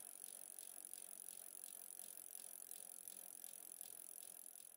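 Faint, even ticking of a coasting bicycle freewheel, about four clicks a second, over a steady hiss.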